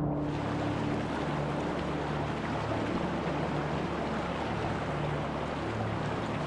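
Mountain creek rushing steadily over rocks, a full, even wash of water noise, with a few low held tones fading in and out underneath.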